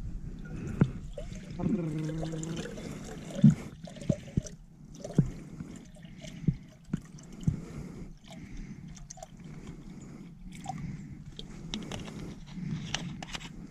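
Water dripping and trickling, with scattered light taps and knocks.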